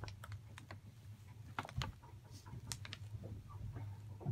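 Brown paper bag crinkling and rustling as it is handled, a scattering of short sharp crackles over a low steady hum.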